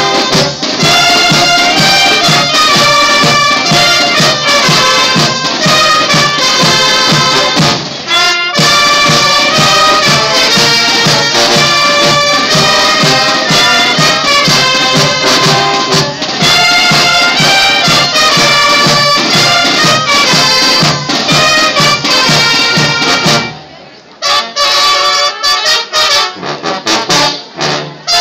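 A banda, a Mexican brass band, playing live: trumpets, trombones and tuba over drums with a steady beat. About 24 seconds in, the bass and drums drop out and a lighter passage follows.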